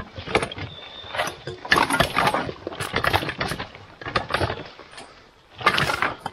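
A loaded two-wheeled hand cart clattering and bumping down a rocky dirt path, its wheels and frame knocking irregularly over stones and roots, with footsteps scuffing through dry leaves. It eases off briefly about five seconds in, then a loud clatter comes just before the end.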